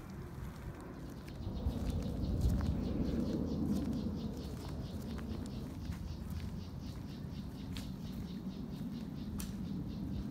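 A low, steady rumble on the microphone, growing louder about two seconds in, with faint high bird chirps over it.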